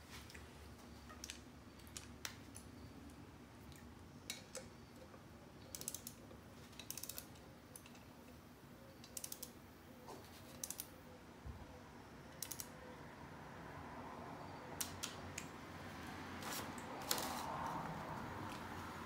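Hand torque wrench tightening intake manifold bolts: scattered light ratchet clicks, some in quick runs of several.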